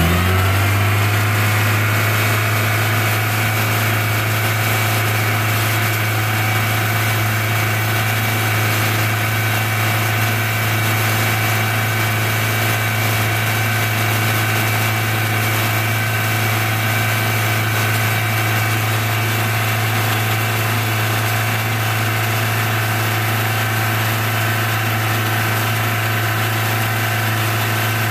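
Toyota 2ZZ-GE 1.8-litre four-cylinder engine held at a steady raised speed, above idle, to work trapped air out of the cooling system.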